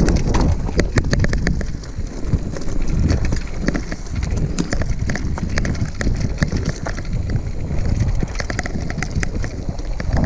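Mountain bike clattering over a rocky trail: many quick, irregular clicks and knocks from tyres, chain and frame, over a steady wind rumble on the camera microphone.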